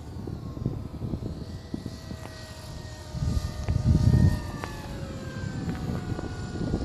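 Electric motor and propeller of a HobbyKing 1600mm P-51D RC model plane whining in flight, the pitch falling slowly. Wind rumbles on the microphone, loudest about three to four seconds in.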